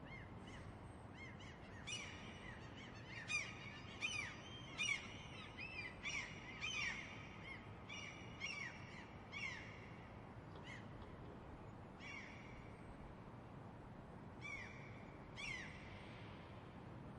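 Gulls calling: many short, arching cries overlapping, thickest in the first half and thinning to a few scattered calls near the end, over a steady background hiss.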